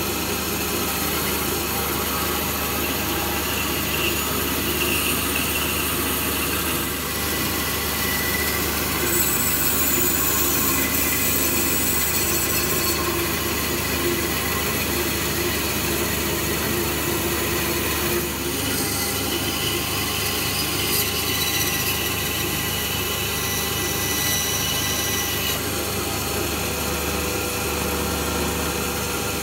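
Bandsaw running and cutting through a small ash log drawer blank: a steady machine noise whose cutting sound changes a few times as the blade works through the wood.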